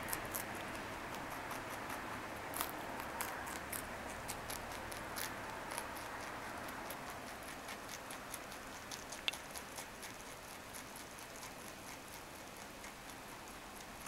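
Rabbit chewing carrot tops: a quick, irregular run of small crunching clicks as it works the leaves and stems, growing fainter toward the end.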